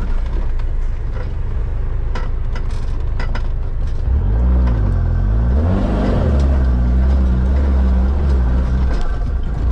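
Mitsubishi Pajero off-road vehicle's engine pulling under load on a dirt trail, with a few sharp knocks in the first three seconds. About four seconds in the engine revs up as the vehicle climbs a slope, then holds a higher, steady pitch.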